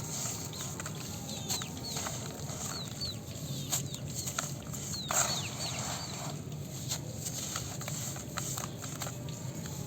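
Dry, gritty red dirt crumbling, a scatter of small crackles and crunches over a steady gritty hiss, with birds chirping in short falling calls now and then and a brief louder call about five seconds in.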